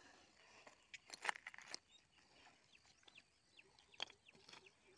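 Near silence: faint outdoor ambience with a few soft clicks, a small cluster a little over a second in and one more about four seconds in.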